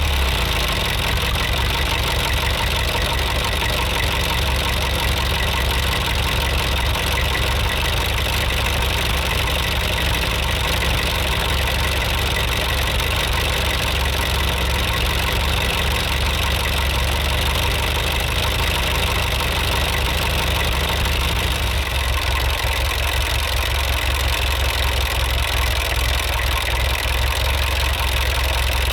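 Tractor engine running steadily with a deep, even drone; about two-thirds of the way through its sound thins a little.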